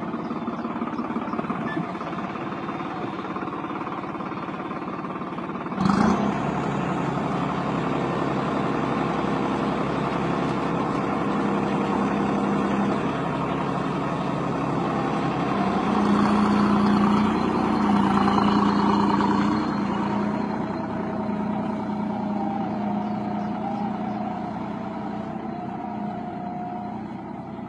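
New Holland tractor's diesel engine running steadily, with a single sharp knock about six seconds in. Its note shifts a little past the middle and it runs louder for a few seconds before settling back.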